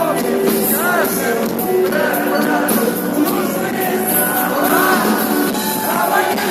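A pop-rock song playing, with singing voices.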